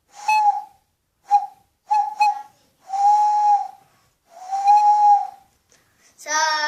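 Hand owl call: breath blown across the bent thumbs into cupped, clasped hands, giving a breathy hoot at one steady pitch. A few short toots come first, then two longer held hoots.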